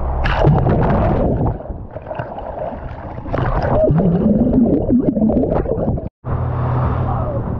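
Sea water rushing and splashing past a microphone dipped in and out of a moving boat's wake, muffled and gurgling with bubbles while it is underwater. A boat engine hums steadily underneath.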